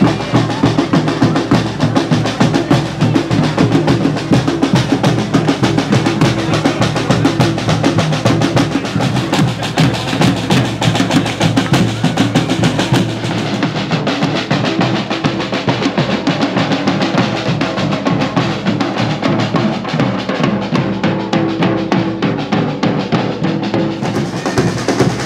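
Street drum band playing a fast, driving rhythm on bass and snare drums, with dense, steady strikes.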